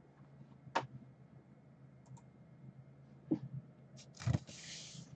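Computer mouse and keyboard clicks while a web page is brought up: a few separate sharp clicks, two of them close together near the end, followed by a short rustle.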